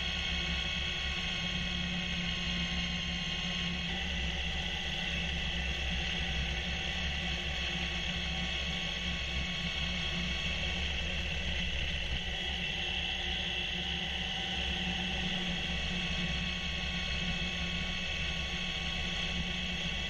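John Deere 1025R subcompact tractor's three-cylinder diesel engine running steadily under load, driving its 47-inch front-mount snowblower as it throws snow, with a steady high whine over the engine note.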